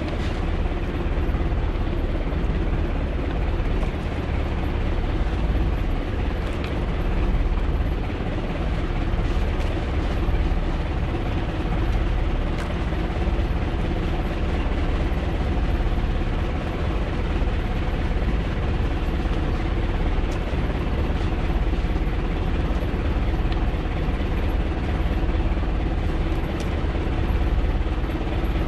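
Outrigger fishing boat's engine running steadily: an even, unbroken drone strongest in the low end, with a few steady hums above it.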